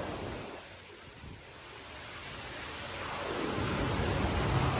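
Rushing water in a flooded mine, a steady noise that dips about a second in and then grows louder, with a low rumble building near the end.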